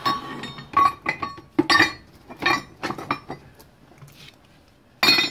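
Metal brake caliper parts being put into a plastic bucket, knocking against one another in a string of clanks with short metallic rings, the loudest just before the end.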